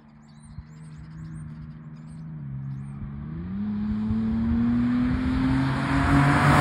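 Ford Bronco Raptor's twin-turbo V6 engine approaching under acceleration, its note growing steadily louder. The pitch dips briefly about two and a half seconds in, then climbs steadily.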